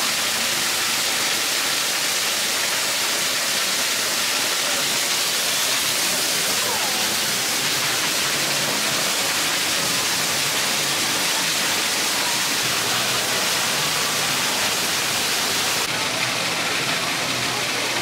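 Steady rush of falling water, an even hiss without pauses or rhythm.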